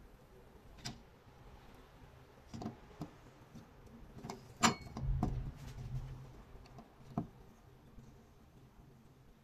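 Scattered clicks and knocks of metal pliers and a hot metal ball against a plastic toy and a small metal tray as the toy comes apart. The sharpest click comes about halfway through and is followed by a low dull thump lasting about a second.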